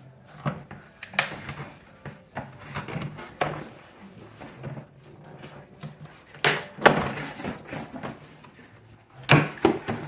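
A cardboard box being opened by hand: a blade scraping and cutting along the packing tape, then the cardboard flaps rustled and pulled open. Short scattered scrapes and knocks, with louder clusters about two-thirds of the way in and near the end.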